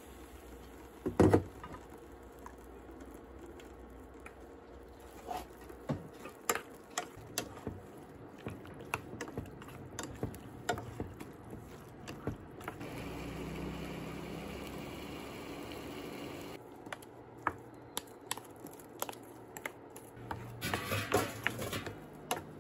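Wooden spoon stirring chopped abalone, then rice, in a stainless-steel pot: repeated short clicks and scrapes against the pot, with a loud knock about a second in and a quick run of clicks near the end.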